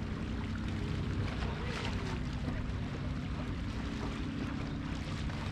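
Steady low engine hum under a wash of outdoor wind and water noise.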